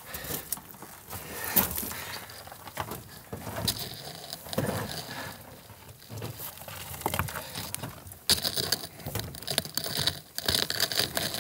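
Footsteps crunching and sliding on loose rock and gravel, with small stones clicking and shifting underfoot in an irregular pattern.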